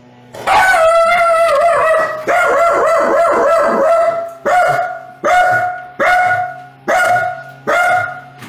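Small dog barking and howling loudly: a long, wavering howling bark for the first few seconds, then five separate barks about 0.8 s apart, each dropping in pitch at the end. The dog is worked up at a gardener outside.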